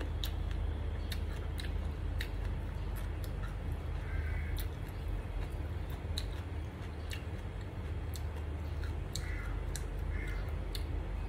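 A person eating rice and omelette with her fingers: chewing with many scattered sharp lip smacks and mouth clicks, over a steady low hum.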